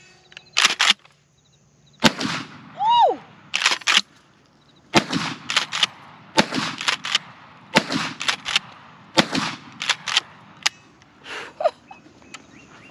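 Kel-Tec KSG 12-gauge pump shotgun firing slugs in a quick string of shots about every second or so, each one sharp and echoing, with the clack of the pump slide being worked between shots. A shouted "woo" comes about three seconds in.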